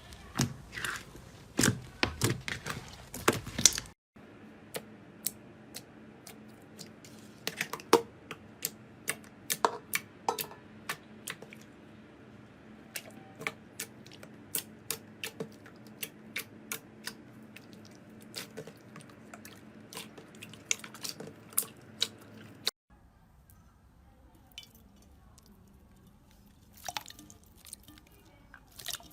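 Slime being squeezed and poked by hand, giving sharp sticky clicks and pops. The clicks come thick at first, then scattered over a faint steady hum, then fewer and quieter near the end.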